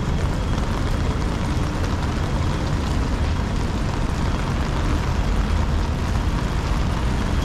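Steady rain on a wet city street heard from under an umbrella: an even hiss over a deep, constant rumble of road traffic.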